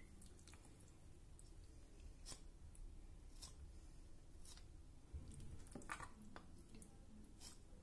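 Faint scattered clicks of a kitchen knife slitting raw chicken drumsticks.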